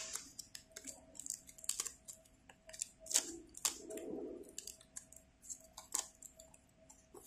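Corrugated cardboard crackling and snapping in irregular small clicks as die-cut letter pieces are pushed out of a cut sheet by hand, with a duller rustle of the board a few seconds in, over a faint steady hum.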